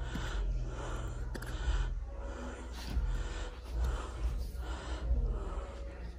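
A man breathing heavily and loudly, panting from heat and exertion, a breath every second or so.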